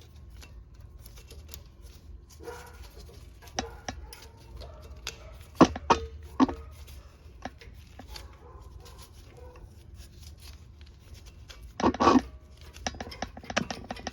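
Rear brake pad being pulled out of the caliper bracket: scattered light metal clicks and scrapes, with a few sharper knocks a little past the middle and a short rattle near the end.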